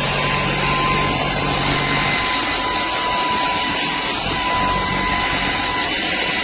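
Vacuum cleaner motor running steadily, a loud rushing of air with a high, constant whine.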